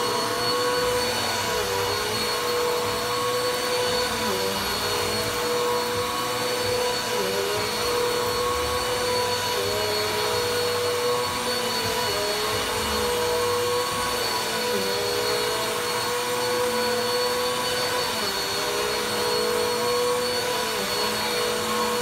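Bissell upright vacuum cleaner running on carpet: a steady motor whine that dips briefly in pitch every few seconds as the head is pushed and pulled through the carpet pile.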